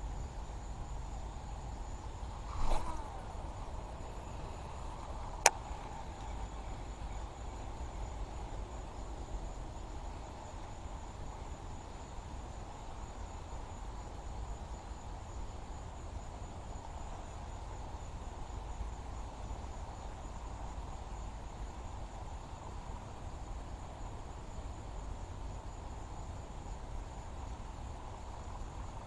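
Steady drone of insects such as crickets over a low outdoor rumble. About three seconds in there is a brief sound that drops in pitch, and a couple of seconds later a single sharp click.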